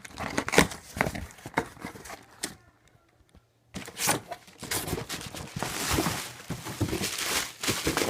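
A cardboard shoe box and its packaging being handled: scattered knocks and taps, a second-long gap about three seconds in, then a few seconds of crinkly rustling.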